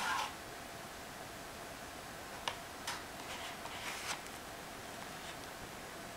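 Music from the paper record player cuts off at the very start. A few faint clicks and paper rustles follow, between about two and a half and four seconds in, as the cardboard tone arm with its pin needle is lifted off the record and folded back, over a low steady hiss.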